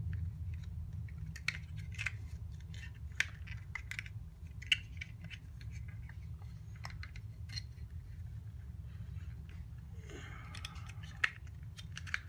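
Scattered light clicks and taps of hard 3D-printed plastic parts as a float is squeezed into a float-valve housing, with a couple of sharper clicks, over a steady low hum.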